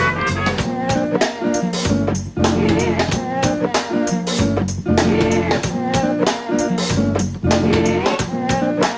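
A live band plays an instrumental passage with no vocals: a busy, driving drum kit over upright bass notes and keyboard or sampler tones.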